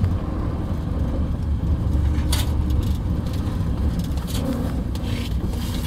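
Narrow-gauge diesel locomotive running along the line: a steady low engine drone and rumble, with a short knock about two seconds in.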